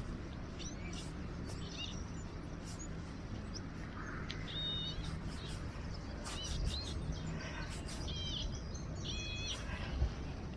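Small birds chirping in short, high, repeated notes over a steady low rumble, with scattered clicks and a single thump near the end.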